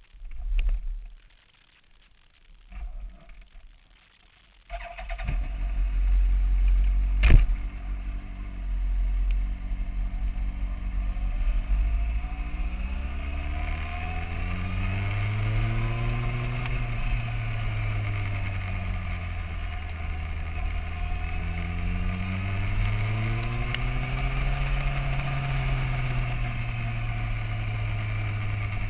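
Sport motorcycle engine starting up about five seconds in after a couple of brief handling noises, with a sharp clack a couple of seconds later, then running as the bike rides off at low speed, its note rising and falling with the throttle. Wind hiss on the tail-mounted microphone over the engine.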